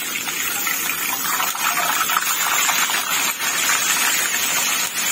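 A whole tilapia deep-frying in a wok of hot oil: a dense, steady sizzle of bubbling oil that grows a little louder in the first second.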